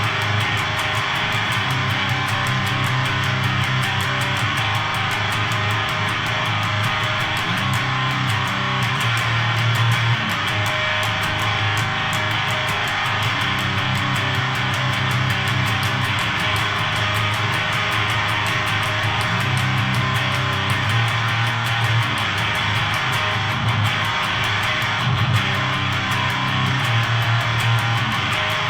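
Electric guitar riffing through a Siren Pedals Eligos HM-2-style heavy metal distortion pedal into a tube amp, giving a thick, saw-edged "chainsaw" distortion. The riff is played as repeated chugging low notes and never stops.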